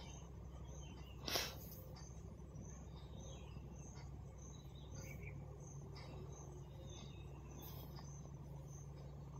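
Quiet room tone with a steady low hum and faint, scattered bird or insect chirps, broken by one brief noise about a second in.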